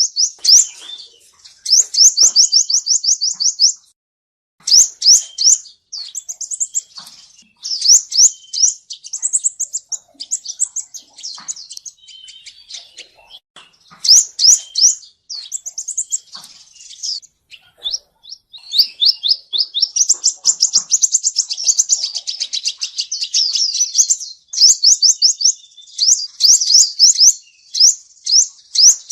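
Male sunbird singing: fast trills of short, high, down-slurred chirps, about eight a second, in bursts of one to a few seconds with brief breaks. It is the male's song, used as a lure call for trapping.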